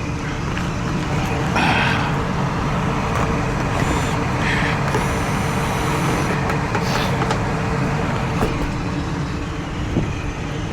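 Rooftop HVAC unit running with a steady mechanical drone and low hum, with a few brief rustles and clatters of handling laid over it.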